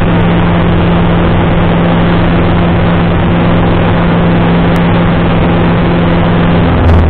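Light single-engine airplane's piston engine and propeller running steadily at climb power, heard inside the cockpit as a constant drone. A short knock comes near the end.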